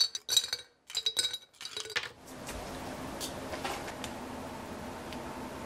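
Ice cubes dropping into a glass cup: a quick run of sharp, ringing glass clinks in the first two seconds. Then a steady low hum with a few faint ticks.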